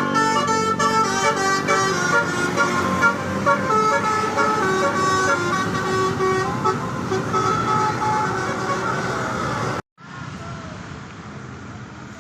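Tour bus telolet horn playing a tune of held, stepping notes over the bus's engine. It cuts off abruptly about ten seconds in, and quieter street and traffic noise follows.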